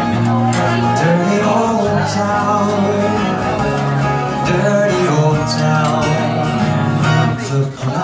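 Live folk duo: two guitars strummed and picked together, with a man singing over them.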